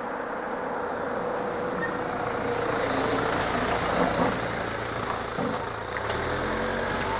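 A van drives past close by and away over the level crossing, engine running and tyres hissing. It is loudest three to four seconds in, with a couple of sharp knocks around then.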